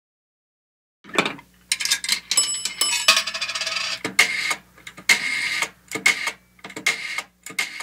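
Outro logo sound effect of bell-like rings mixed with metallic clicks and clatter in quick, irregular bursts, starting about a second in, over a faint low hum.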